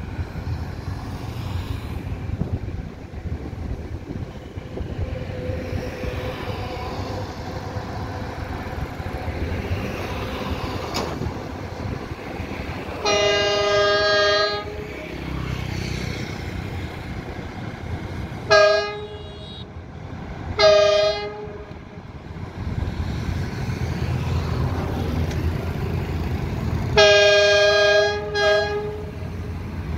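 Diesel locomotive air horn sounding a long blast, then two short toots, then another long blast as the freight train approaches, over a steady low rumble of street traffic and the oncoming train.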